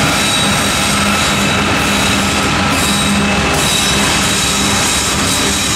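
Union Pacific diesel freight locomotives passing close by, followed by covered hopper cars rolling past: a steady, loud rumble of engines and steel wheels on rail, with a faint steady ringing tone above it.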